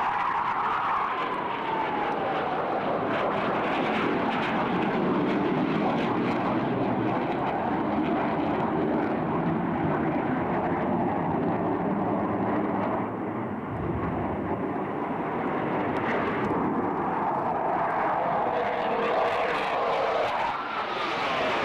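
Blue Angels F/A-18 Hornet jet engines roaring past: a whine falls in pitch as the jets pull away, the roar holds steady, and a whine rises again in the last few seconds as jets come back in.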